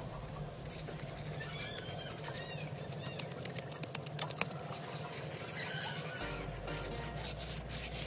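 Wet mud squelching and crackling as a foot presses and smooths it down, with many small clicks, and birds chirping briefly.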